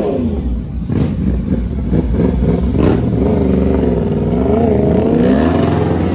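Motorcycle engines revving, their pitch repeatedly rising and falling over a steady low rumble, as the bikes are warmed up.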